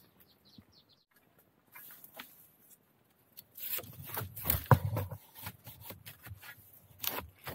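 Dry bamboo leaves and twigs rustling and crackling underfoot or under hand, with a few sharp snaps. It starts about three and a half seconds in.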